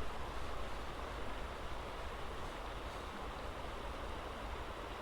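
Steady rushing of a flowing creek.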